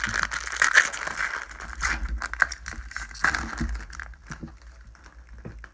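Foil wrapper of a Pokémon booster pack crinkling as it is torn open, the crackling loud for about the first three seconds, then dying down to light rustling and small clicks.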